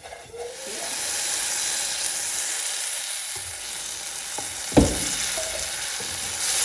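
Food sizzling in a hot pan, the hiss swelling up about a second in and holding steady, with one sharp knock of a utensil against the pan a little past the middle.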